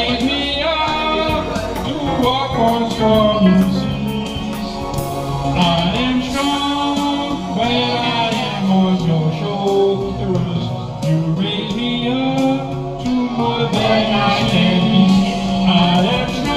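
Karaoke singing: a man and a woman singing through handheld microphones over a recorded backing track.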